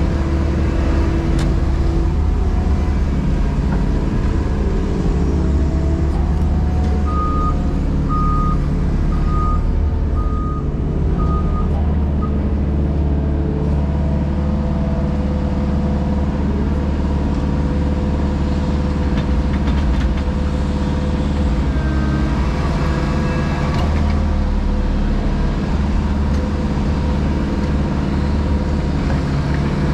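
Diesel engine of a JCB Pothole Pro running steadily, its pitch shifting a little as the machine works. A short series of reversing-alarm beeps, about seven seconds in.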